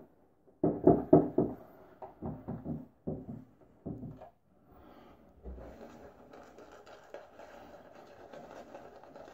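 A boar-bristle shaving brush (Semogue Owners Club) loading soap in brisk rubbing strokes, then swirled over a wet face to build lather. The lathering is a steady, scratchy bristle rubbing from about five seconds in.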